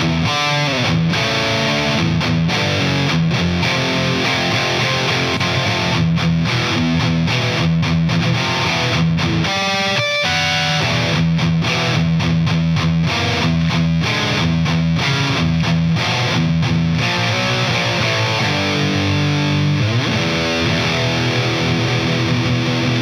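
Heavily distorted electric guitar from an Epiphone Les Paul played through a Hughes & Kettner Coreblade amp on its high-gain Ultra 1 channel. It plays heavy metal rhythm riffs, chugging chords with frequent sudden stops.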